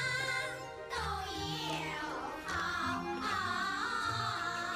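A group of children singing together a xige, a song in Chinese opera style, with wavering, ornamented sung notes over instrumental accompaniment with a steady bass line.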